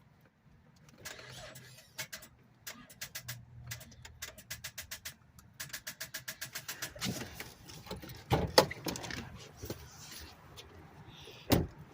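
Fast runs of sharp clicking, about eight clicks a second at their most regular, followed by a few heavier knocks, from a Cadillac STS that will not start.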